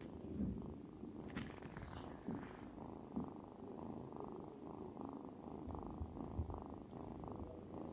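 Tabby kitten purring steadily and close up, in a continuous low rhythmic rumble, the sound of a content, drowsy kitten. A couple of brief soft rustles break in, about a second and a half in and near the end.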